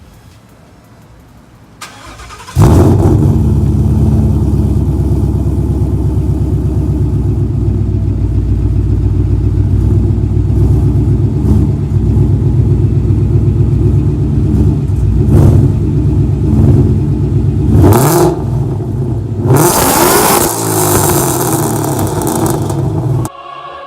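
2017 Ford Mustang GT's 5.0-litre V8, breathing through freshly installed BBK long-tube headers, cranks and catches about two and a half seconds in, then idles loud and steady. It is given a quick blip of the throttle later on and a longer rev-up near the end.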